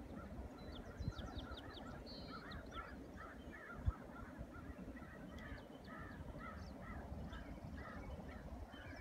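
A bird calling over and over in a long series of short calls, about two a second, with faint higher chirps of other birds and one brief knock about four seconds in.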